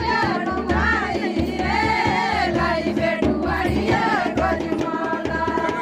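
Voices singing a Pahadi folk song together over a steady, repeated drum beat.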